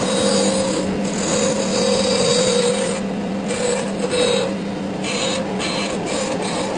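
A woodworking machine running with a steady motor hum, while wood is worked against it in several rasping, scraping passes that come and go.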